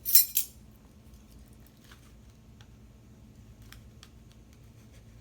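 Fine sea salt poured into a measuring spoon, a short hiss in the first half second, followed by a few faint, scattered clicks of the spoon and containers being handled.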